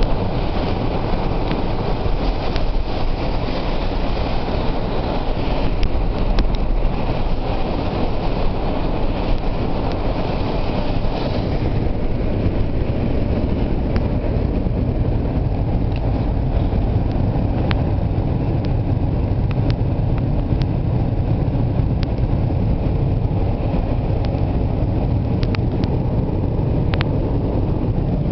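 Steady road noise inside a moving car's cabin: engine and tyres on a wet road, with scattered faint ticks.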